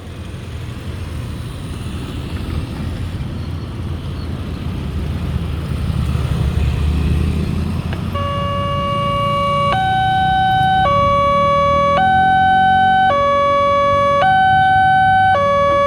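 Railway level-crossing warning siren starts about eight seconds in: an electronic two-tone signal switching between a low and a high note about once a second, the alarm that a train is approaching. Before it, a low rumble grows steadily louder.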